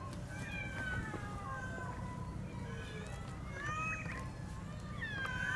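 A crowd of domestic cats meowing, many short calls overlapping one another throughout, several at once near the end.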